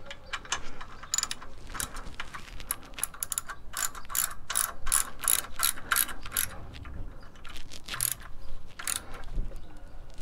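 Ratchet wrench clicking in repeated back-and-forth strokes, tightening bolts.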